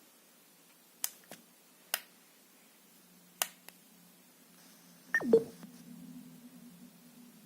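A few sharp clicks of the Douni A7 speaker being handled and its buttons pressed. Then its start-up tone sweeps quickly downward, and a steady low hum from the speaker follows: the noise it makes at low volume.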